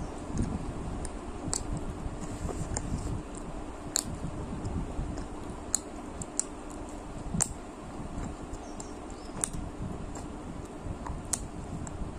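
Close-miked eating of biryani with curd: chewing, with sharp wet mouth clicks every second or two over a low rumbling background noise.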